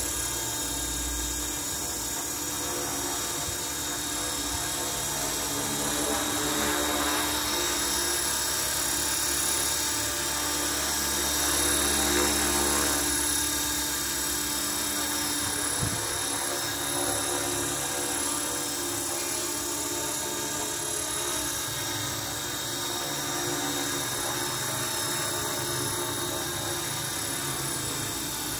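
Align T-Rex 450 V2 electric RC helicopter running, its motor whining and its main and tail rotors whirring, with steady high-pitched tones throughout. The sound swells a little twice as the helicopter lifts off the grass into a low hover.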